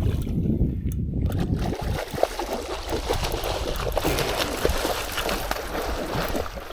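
Small sturgeon thrashing on the riverbank, a run of irregular slaps and rustles against a steady water-and-wind background.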